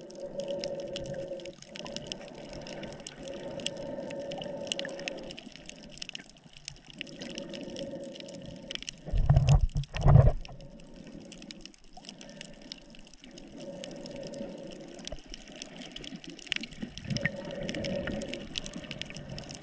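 Muffled underwater water noise recorded through a GoPro housing while snorkeling, swelling and fading in stretches of a second or two, with scattered faint clicks. Two loud low thumps come about nine and ten seconds in.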